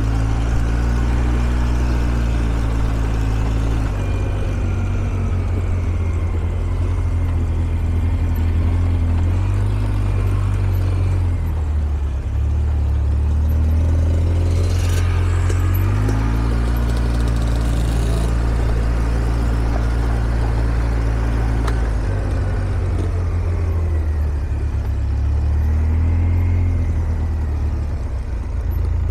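ATV engine running under way on a trail, its pitch rising and falling every few seconds as the throttle changes.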